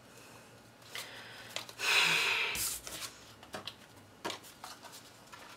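Paper pieces being handled and pressed together by hand: a rustling rub of paper lasting about a second, starting about two seconds in, with several light clicks and taps before and after it.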